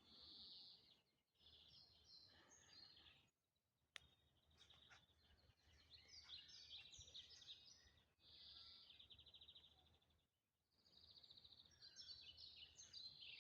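Faint songbirds singing: high chirps and quick trills from more than one bird, with a few brief gaps.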